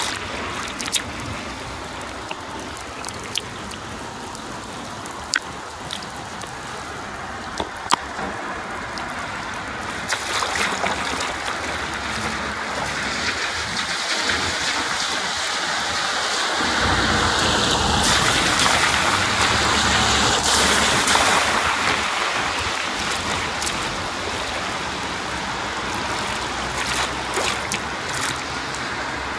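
Rain pattering on wet pavement, with sharp splashes and taps of sneakers stepping in shallow puddles now and then. About halfway through a rushing noise with a low rumble swells up, is loudest for a few seconds and then fades back to the rain.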